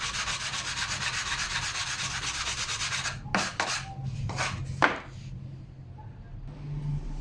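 Wood being sanded by hand, a steady fast scraping of abrasive on wood for about three seconds. It is followed by four short separate strokes, the last ending in a sharp knock.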